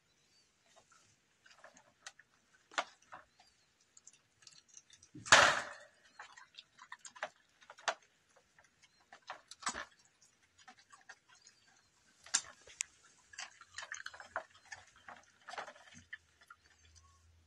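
Scattered light clicks and knocks from a puppy moving about in a wire dog crate, with one louder clatter about five seconds in.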